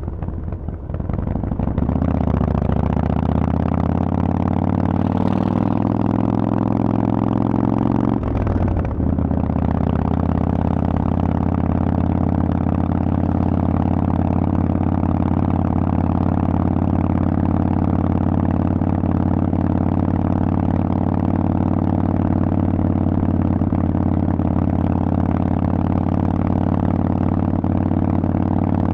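Harley-Davidson Forty-Eight 1200XL's air-cooled V-twin running loud through Vance & Hines aftermarket pipes. The throttle opens about a second in and the engine pulls with slowly rising pitch, then breaks briefly for a gear change at about eight seconds. After the shift it holds a steady engine speed to the end.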